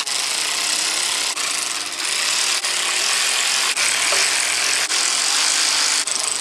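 Power ratchet running nuts down onto the oil pan studs of a Honda B20 engine block, running continuously with brief breaks every second or so.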